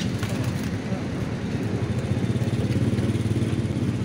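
Motorcycle engine idling with a steady, low, rapid throb.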